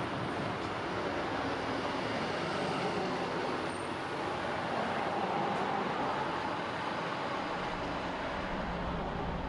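A city bus driving past on a road, over steady traffic noise, swelling slightly around the middle as it goes by.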